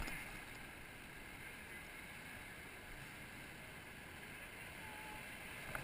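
Whitewater rapids rushing around boulders: a steady, even wash of water noise.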